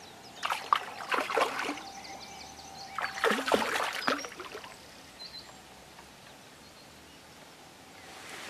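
Water splashing in two bursts, about half a second in and about three seconds in, as a hooked carp thrashes at the surface close in.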